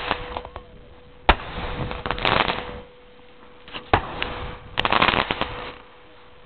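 Consumer fireworks going off: two sharp bangs about two and a half seconds apart, each followed by a burst of crackling.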